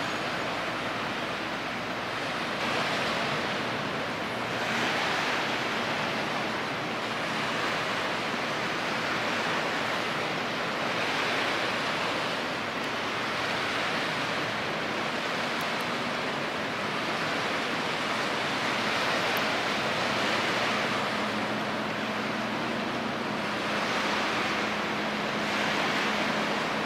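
Sea waves washing against the shore, the wash swelling and easing every two to three seconds. A faint, steady low hum comes in about two-thirds of the way through.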